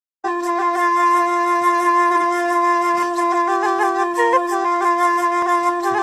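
Background music: a wind instrument playing a melody over one steady drone note, the melody moving more busily in the second half.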